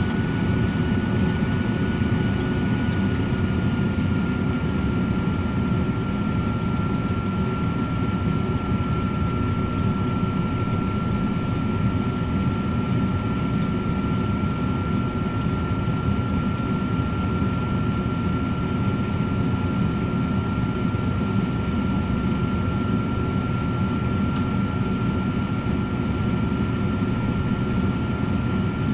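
Cosori 13-quart air fryer oven running, its fan giving a steady whoosh under a steady high whine. About three seconds in there is a faint click and the whine drops slightly in pitch.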